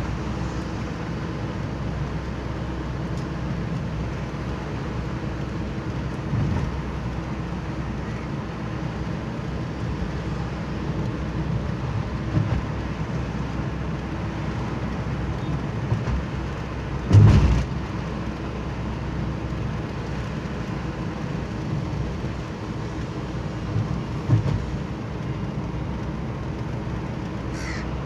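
Steady road and engine noise heard from inside a moving car, mostly a low rumble. One loud, short thump about two-thirds of the way through, with a few lighter knocks elsewhere.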